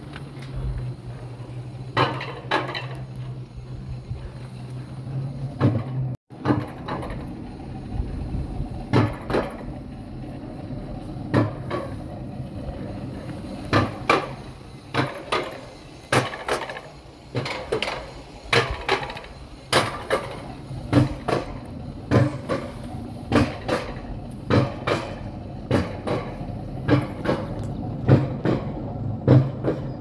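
Mountain coaster cart being hauled up the lift section of its steel rail track, clacking in a steady run of knocks, roughly two a second, over a low hum.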